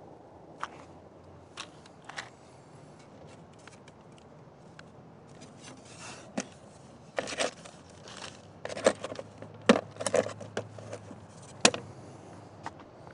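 Handling noise: irregular clicks, taps and scrapes, sparse at first, then thicker and louder in the second half.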